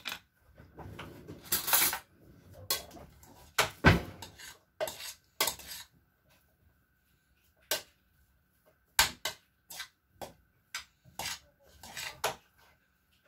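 Kitchen utensils clinking and knocking on a wooden cutting board and a stainless steel pot while vegetables are chopped and mixed: scattered sharp clatters, with a quiet stretch a little after the middle.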